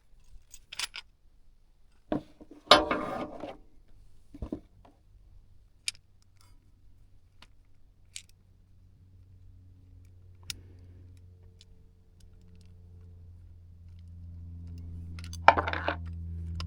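Scattered clicks and clinks of small metal parts being handled while a decorative windmill is taken apart and refitted. From about the middle a steady low hum sets in and slowly grows louder.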